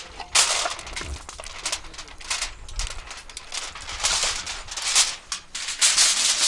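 Aluminium foil crinkling and crackling in irregular bursts as hands handle and fold it around a whole stuffed chicken, busier and louder near the end.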